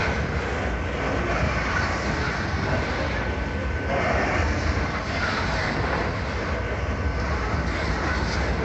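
Freight train of covered hopper wagons rolling past close by at a level crossing: a steady rumble of steel wheels on the rails.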